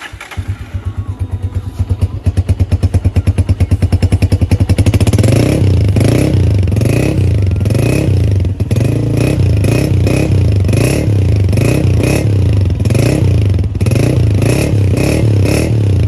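Honda CG 125's single-cylinder four-stroke engine running after a fresh tune-up and oil change. Its firing pulses quicken over the first five seconds, then it is revved with repeated short throttle blips.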